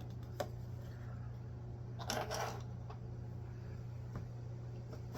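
A few light clicks and a short rustle as small plastic figure accessories and their packaging are handled, over a steady low hum.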